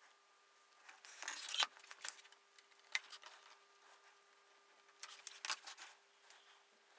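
Faint scraping and light knocks of tools and wood being handled on a workbench, in three short bursts, over a faint steady hum.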